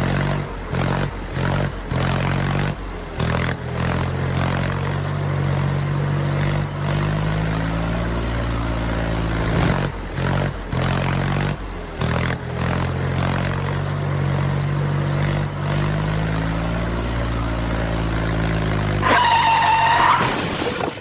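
Engine sound effect of a tractor, running steadily with slow rises and falls in pitch, broken by several short gaps where clips are cut. Near the end a high, wavering horn-like tone sounds for about two seconds over the engine.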